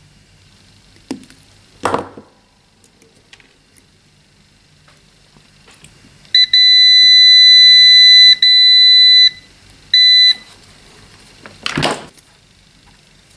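Multimeter continuity beeper sounding a steady high-pitched beep for about three seconds with a brief break, then a short second beep, as test probes touch across a closed circuit on the adapter's board. A few short knocks of handling come before and after the beeps.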